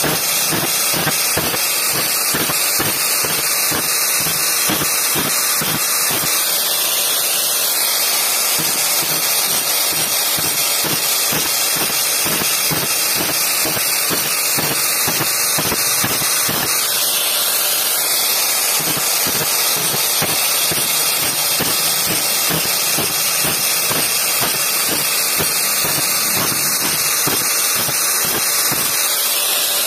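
Grinder fitted with an old tile-cutting disc, grinding the teeth of a bandsaw blade: a steady, loud hissing grind with a quick, regular pulsing.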